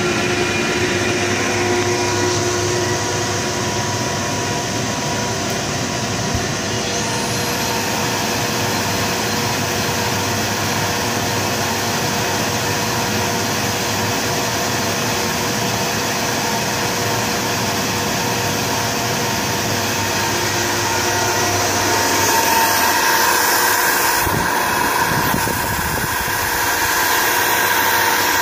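Kaeser SM11 10 HP rotary screw air compressor running steadily: a loud, constant machine hum with a few steady tones. It gets slightly louder about two-thirds of the way through.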